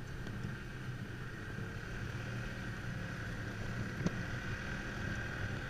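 Dog sled gliding over a packed snow trail: a steady rumble and hiss from the runners on the snow, with a single knock about four seconds in.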